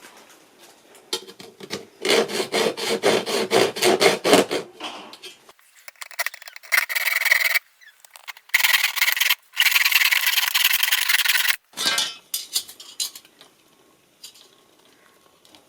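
Fast, even back-and-forth rasping strokes of a hand tool on a floor transition strip, about six a second, then longer unbroken stretches of rasping with two short breaks.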